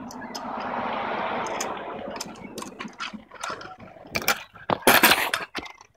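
A stunt scooter's wheels rolling on asphalt, followed by a run of sharp clacks. About five seconds in comes a loud clattering impact as the scooter hits the pavement on a tail whip attempt.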